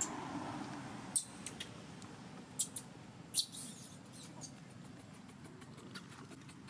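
Several brief, high-pitched squeaks or clicks, clustered in the first half, over steady low background noise.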